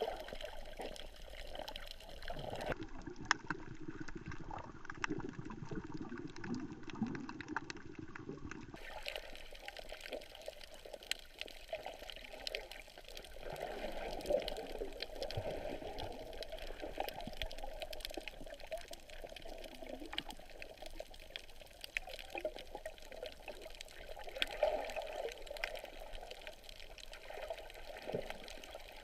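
Water sloshing and bubbling, muffled as heard through an underwater camera housing, with many scattered sharp clicks. Between about 3 and 9 seconds in, the sound turns deeper and duller.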